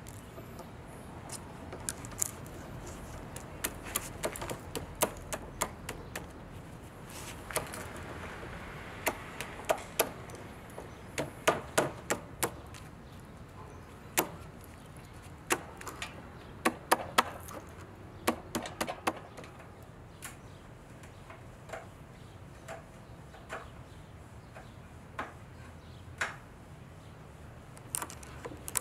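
Wood chisel chipping and scraping old finish off a plywood panel: irregular sharp clicks and taps as flakes break away, bunched in quick runs.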